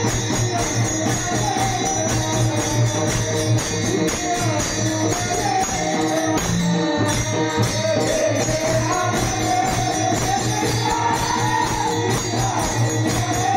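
Marathi devotional kirtan singing: a voice sings a bending melodic line over a steady low drone, with continuous rhythmic jingling percussion.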